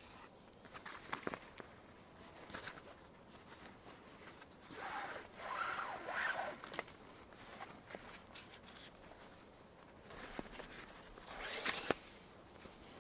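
Close-up handling of a canvas poncho and cord on a wooden pole tripod: rustling and rubbing in two longer stretches, about five seconds in and again near the end, with a few sharp clicks between.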